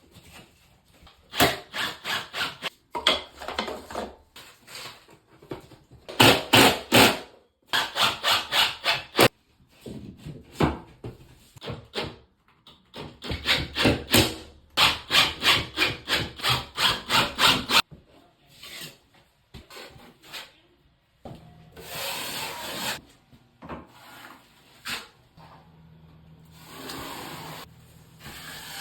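Rhythmic back-and-forth rasping strokes of a hand tool working wood or similar material, like hand sawing or filing, in runs of several seconds separated by short pauses.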